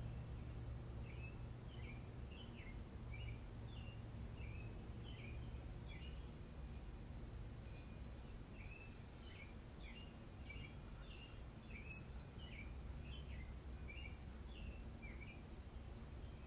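A small bird calling, short chirps repeated steadily at a bit more than one a second, over a low steady hum. Faint light clicks come in around the middle.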